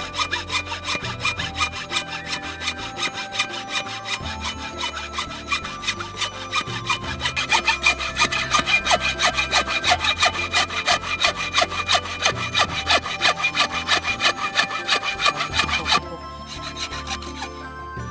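Hand saw cutting through a thick green bamboo culm in quick, even back-and-forth strokes that stop suddenly about sixteen seconds in.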